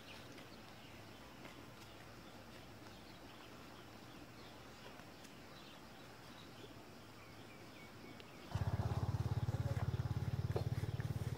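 Quiet rural outdoor ambience with faint bird chirps. About three quarters of the way through, a loud, steady low rumble with a fast flutter starts abruptly and continues.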